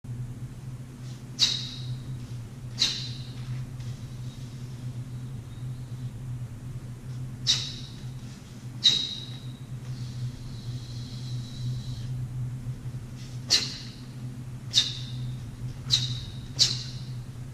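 Crisp snaps of a heavy taekwondo uniform's fabric as strikes, blocks and kicks land in a pattern, about eight at uneven intervals, over a steady low hum.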